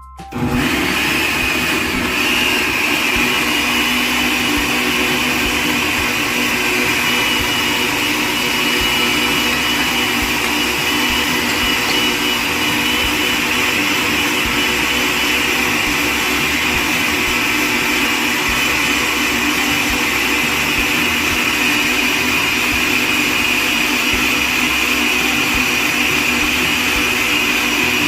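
Electric motor of a kitchen juicing appliance switching on and running steadily at high speed, with a constant whine and no change in pitch.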